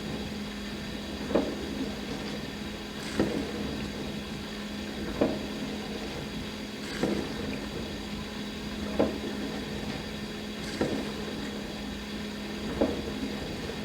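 Dishwasher running through a wash cycle: a steady motor hum with short water surges about every two seconds.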